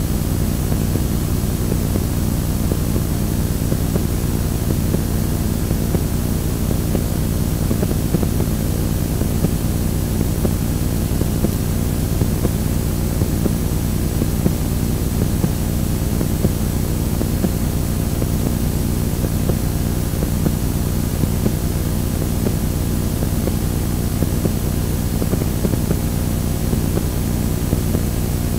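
Audio static from playing back a blank Scotch Hi-Fi T-120 VHS tape: a steady, unbroken rushing noise, heaviest in the low end, with a faint hum underneath.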